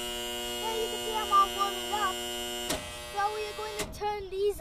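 Loud, steady mains-frequency electrical hum and buzz from the lighting control and ballast gear of 400-watt metal halide court lights. A little over halfway through, a click and the hum cuts off. A second click follows about a second later, then a child's voice near the end.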